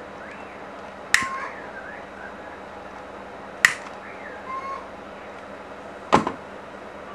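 Three sharp clicks about two and a half seconds apart, the last with a duller tail: a piezo lighter's igniter being sparked near the detector circuit's pickup coil.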